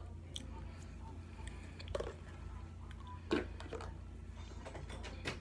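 Soft chewing and mouth sounds with a few small clicks over a steady low hum, the sharpest click about three seconds in.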